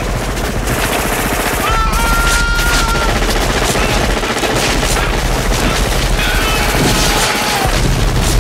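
Sustained automatic gunfire from a rotary minigun and rifles, many rapid shots overlapping into a continuous barrage with no break.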